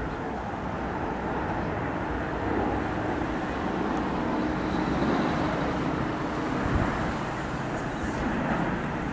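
Jet engine noise of a Boeing 737 airliner on final approach passing low overhead: a steady rushing rumble that swells a little in the middle.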